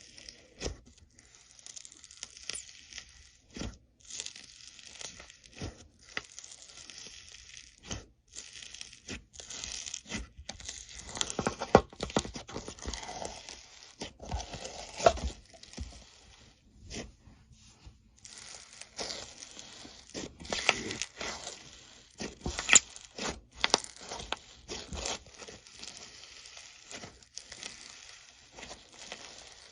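Slime being handled by hand, with irregular sticky crackling, clicking and tearing sounds as it is pressed and pulled, and a few louder pops around the middle.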